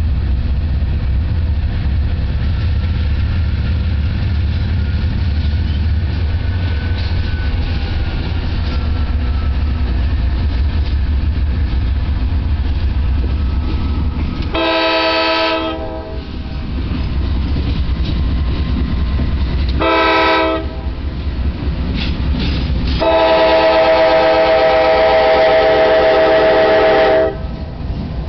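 Freight train led by GE diesel locomotives rumbling low and steady as it pulls out. The lead locomotive's multi-chime air horn sounds a blast of about a second about halfway through, a shorter blast a few seconds later, then a long blast of about four seconds near the end, the loudest part.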